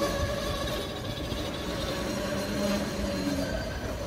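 Freight train of loaded limestone hopper wagons rolling slowly over the rails, a steady rumble of wheels with a steady high tone from the wheels running through it.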